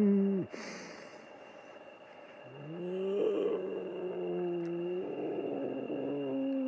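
A man's long, drawn-out humming moans, made with the voice in sustained notes. The first note slides down and stops about half a second in, followed by a breath. A second, lower note starts about two and a half seconds in, drops a step partway through, and is held.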